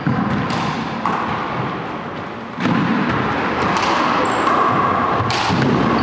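Rubber handball bouncing and striking the hardwood floor and walls of an enclosed court: a few sharp knocks, each with a short echo, spaced unevenly over several seconds.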